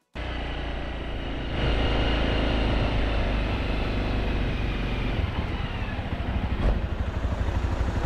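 Small motorbike engine running while being ridden, louder after a second or so. In the second half its firing turns into a slower, even pulsing, as when it eases off toward idle.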